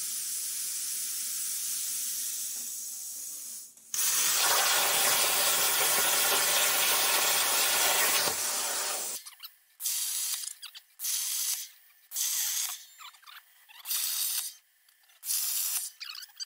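A CNC-driven Primeweld Cut60 plasma torch cutting quarter-inch steel plate. A steady high hiss gives way, about four seconds in, to the arc cutting with a loud, even hiss for about four seconds. Then comes a string of short hissing bursts about a second apart as the torch cuts a row of holes.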